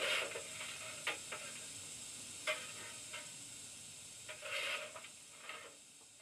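Sound decoder and small speaker of an Oxford Rail Adams Radial 00 gauge model steam tank engine playing its standing-still steam sounds: a steady hiss with irregular short hissing bursts, growing quieter toward the end.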